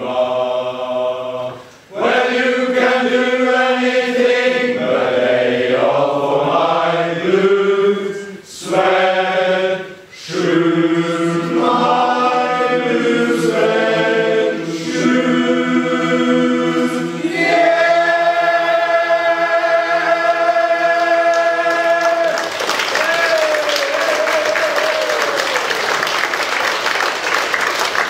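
Men's choir singing a barbershop arrangement a cappella in close harmony, ending on a long held chord. About 22 seconds in, the audience breaks into applause, with a short gliding cheer from one voice.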